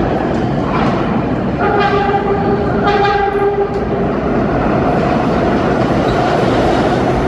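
Vintage 1960s New York subway train sounding its horn in two blasts of about a second each, as it rolls into a station with its wheels and motors rumbling steadily.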